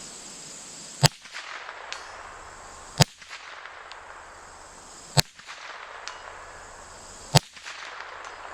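Marlin .22 LR rifle firing CCI Mini Mag rounds: four sharp shots about two seconds apart, with smaller clicks after each.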